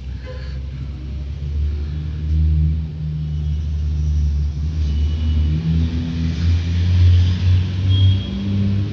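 Loud low mechanical rumble with a steady hum that shifts slightly in pitch now and then.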